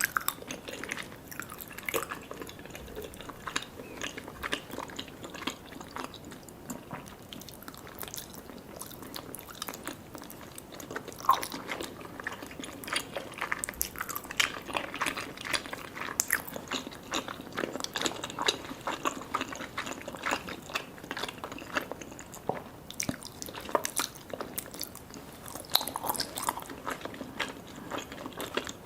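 Close-miked chewing and biting of sticky Vietnamese jelly desserts: irregular wet mouth clicks and smacks, with no speech.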